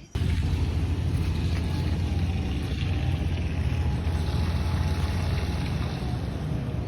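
Steady low engine rumble that starts abruptly at a cut and runs unchanged.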